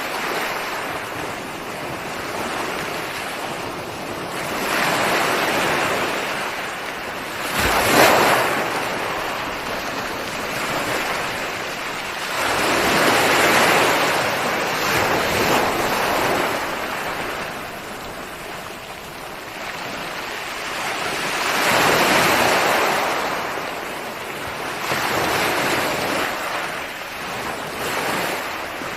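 Ocean waves breaking on a shore in slow surges, each swelling and washing back over several seconds, with one sharper crash about eight seconds in.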